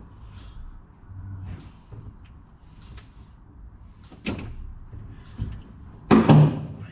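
Knocks and bumps of a person clambering about inside a car's cabin, with a sharp knock about four seconds in and a loud heavy thump about six seconds in.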